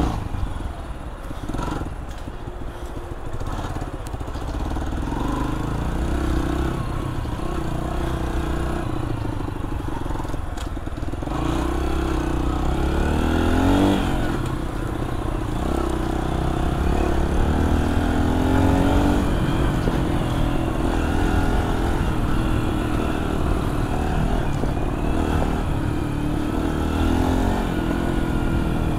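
AJS JSM 125 dirt bike's single-cylinder engine running under way, its revs rising and falling again and again as the throttle is worked.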